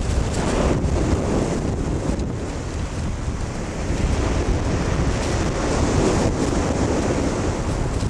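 Wind buffeting the camcorder microphone over the steady wash of waves on a shingle beach.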